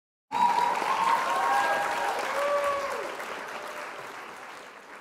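Crowd applause with a few cheering voices, starting suddenly and fading out over several seconds.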